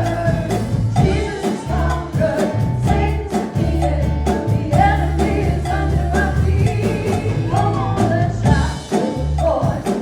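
Gospel song: a lead singer over a band with a bass line, a steady percussion beat and a cowbell.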